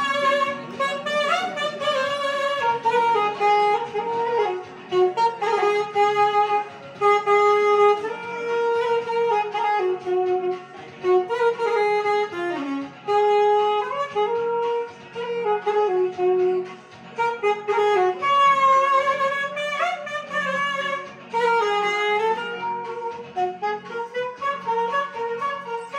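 Alto saxophone playing a solo melody, held notes alternating with quicker runs, breaking into short repeated notes near the end.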